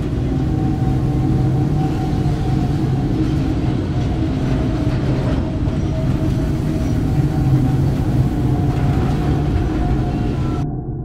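A loud, steady low rumble with several droning tones held through it, like heavy rail machinery. Near the end the higher sounds cut off abruptly and the rumble fades away.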